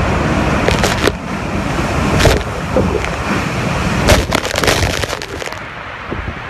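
Hurricane-force wind and rain buffeting the microphone: a steady rush of noise broken by sharp knocks and clatters, the loudest about two and four seconds in.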